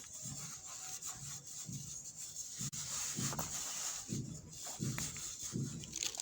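Powdered baking soda being crumbled and rubbed by hand: repeated gritty rubbing strokes, one or two a second, over a steady fine hiss.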